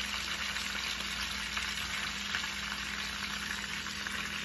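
Whole mojarra fish frying in hot oil in a skillet, a steady sizzle.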